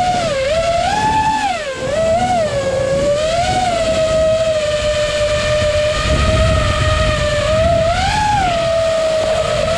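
FPV quadcopter's brushless motors whining steadily, the pitch swooping up and down several times as the throttle changes. A low rush of wind on the onboard microphone swells in the second half.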